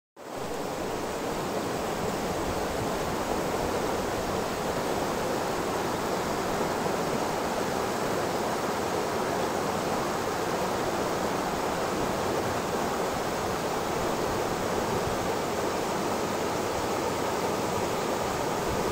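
Shallow, stony river rushing steadily over rocks and riffles.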